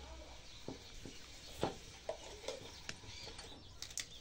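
A few scattered sharp snips of a small hand cutter clipping the training wire and thin branches on a juniper bonsai. The loudest snip comes about one and a half seconds in.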